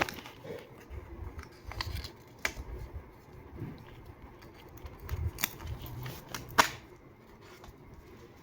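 Paper being handled and cut with scissors: scattered sharp snips and clicks, the loudest a little before the end, with a few dull bumps against the work surface.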